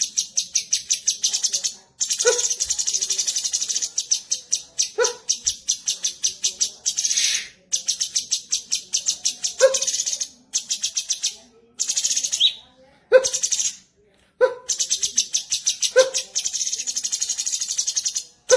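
Cucak cungkok bulbul song: runs of rapid, high chirping notes, about ten a second, broken by short pauses, with a lower, stronger call note every few seconds.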